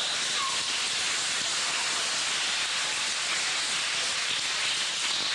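Steady, fairly loud hiss with no rhythm or pitch, unchanging throughout.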